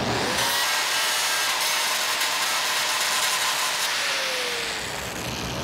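Angle grinder running against steel plate, a steady high whine and hiss as it cleans up the arc-gouged groove to bare metal for welding. About four seconds in, its tone sags and drops lower.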